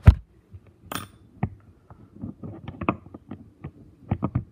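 A thump as the iPad is set down, then a short scrape about a second in. Irregular metallic clinks and knocks follow as Borg Warner 4485 transfer case planetary gears are handled and fitted together, with a quick run of four knocks near the end.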